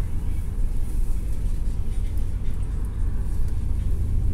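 Steady low rumble of a city bus's engine and road noise, heard from inside the bus cabin while it drives.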